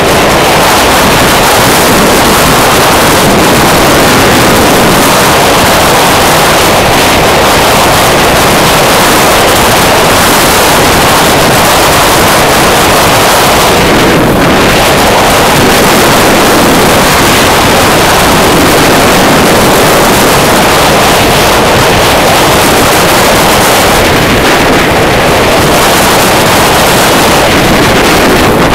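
Loud, steady wind rush over a helmet-mounted microphone on a motorcycle at highway speed, an even roar that covers the engine.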